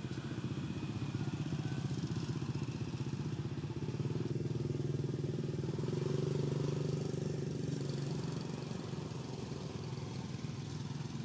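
A motorcycle-type engine running steadily, growing a little louder and fuller about halfway through.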